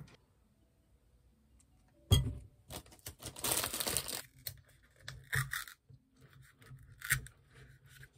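Thin plastic bread bag crinkling and rustling as it is opened and slices are pulled out, with a sharp knock about two seconds in and a few shorter rustles and clicks later.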